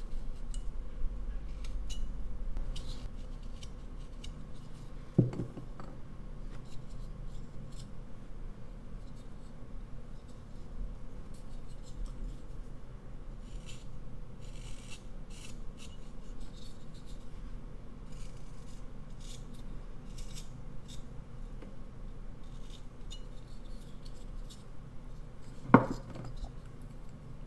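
Whittling knife paring small shavings from a basswood block: a run of short, dry scraping cuts. There is a knock about five seconds in and a louder knock near the end.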